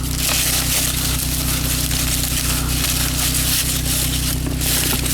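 Dry corn husks and leaves crackling and rustling as an ear of field corn is handled, over the steady low hum of an idling engine.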